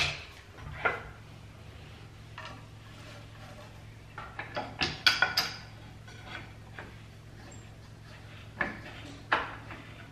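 Thin wooden molding strips being handled and set against the fence and clamp of a Ryobi compact mitre saw: scattered knocks and clicks of wood on the saw's metal and plastic, with a quick run of taps about halfway through. A steady low hum runs underneath.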